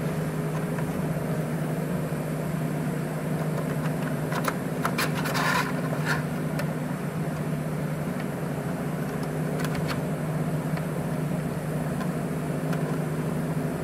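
Light metallic clicks and a short scrape as a thin stainless rod is slid by hand through a CJ-6 cowl gill and its mounting ring, about five seconds in and again near ten seconds. A steady low machine hum runs underneath.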